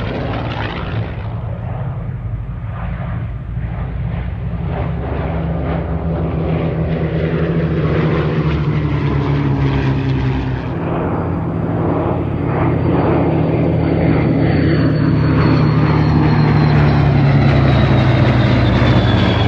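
Second World War piston-engined propeller fighters, Curtiss P-40s among them, flying past in formation with their engines running steadily, growing louder toward the end. A thin high whine falls slowly in pitch over the second half.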